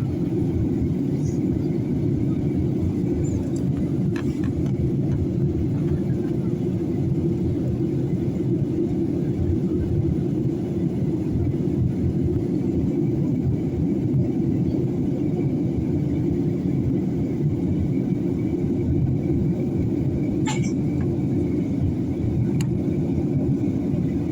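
Steady low rumble of an airliner's cabin in flight, with a few faint clicks along the way.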